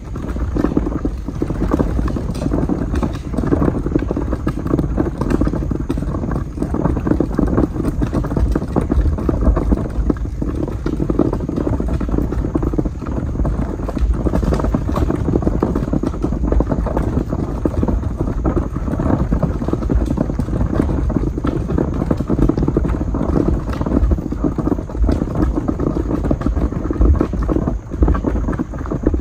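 Wheeled trash can pulled over a thick gravel driveway: a steady, loud rattling rumble of its wheels on the stones, with footsteps crunching on the gravel.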